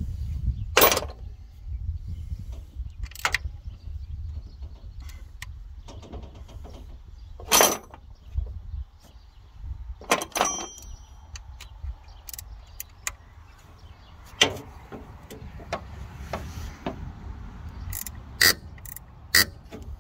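Steel wrenches and a socket ratchet clinking and knocking against the car's sheet metal as they are picked up, set down and worked on the pump bolts: sharp separate clinks a few seconds apart, several in quick succession near the end, over a low steady rumble.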